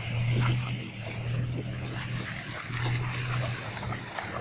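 A motorcycle engine idling with a steady low hum that dips briefly a few times.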